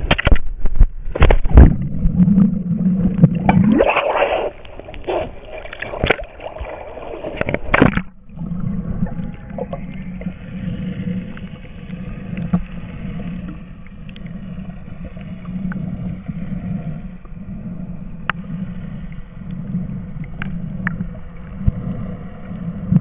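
Splashing and knocks as a hand-held camera goes under the water, then, heard from underwater, the steady pulsing low hum of a motorboat's engine under a muffled hiss.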